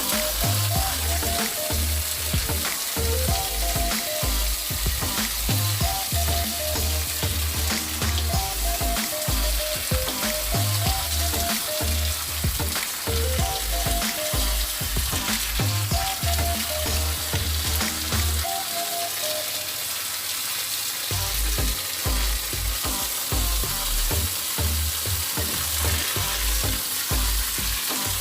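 Background music with a repeating bass line and a short melodic figure that recurs every few seconds, under a steady crackling hiss. The bass drops out briefly about two-thirds of the way through.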